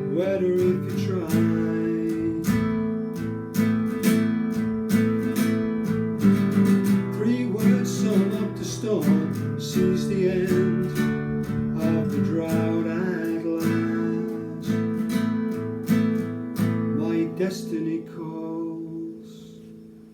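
Acoustic guitar strummed through the instrumental close of a song, fading out over the last few seconds.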